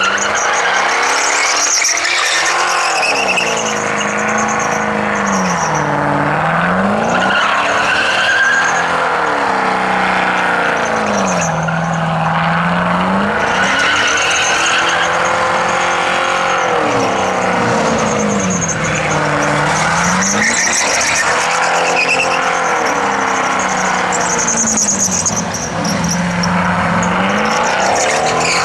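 Holden Commodore sedan doing a burnout: the engine is held at high revs, its note dipping and climbing back every few seconds, over the continuous squeal of the spinning rear tyres.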